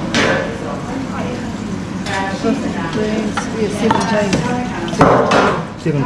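Oily preserved muttonbirds (tītī) being handled, squelching and slapping wetly as they are lifted from a plastic bucket and laid in a stainless steel tray. A few sharp knocks sound against the tray and bucket, the loudest about five seconds in.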